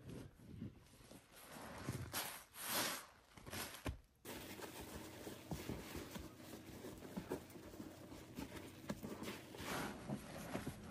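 Sponges squeezed and pressed by rubber-gloved hands in a tub of thick soapy foam: irregular wet squelches and swishes, then, after a cut about four seconds in, a steady crackle of fizzing suds under the pressing hands.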